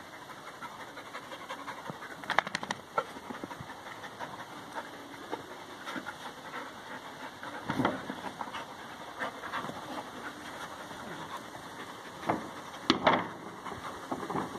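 Dogs panting hard during play, with a few short louder sounds from the tussle, the loudest near the end.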